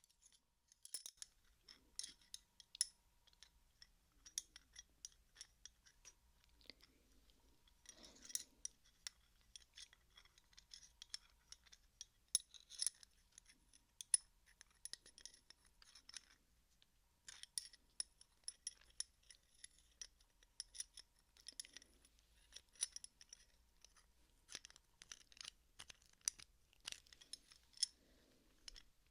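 Metal open-end wrench (spanner) being handled: irregular light clicks, taps and scrapes of metal with a faint metallic ring, quiet.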